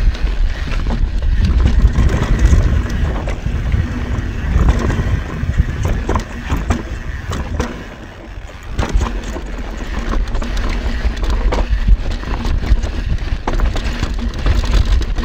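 Mountain bike descending a rough trail: tyres rumbling over dirt and rock, with frequent sharp knocks and rattles from the bike. It goes briefly quieter about eight seconds in.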